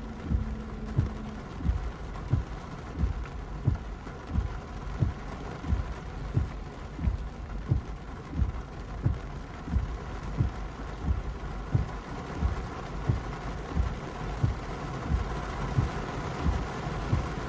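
Car windshield wipers sweeping in a steady rhythm of low thumps, heard from inside the car, with heavy rain on the car.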